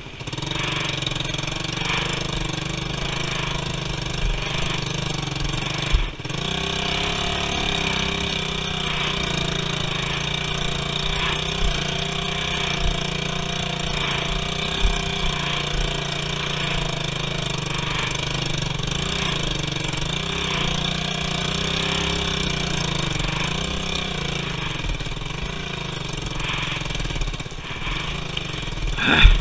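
Motorcycle engine running steadily as the bike is ridden slowly over a slippery dirt road, with a single sharp knock about six seconds in.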